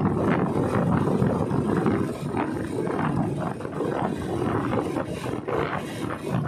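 Motorcycle running at road speed, its engine rumble mixed with steady wind buffeting on the microphone.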